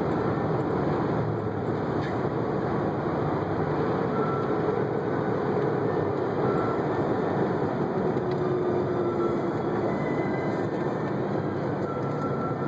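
Steady vehicle running noise with no clear rhythm, and a few faint short tones coming and going.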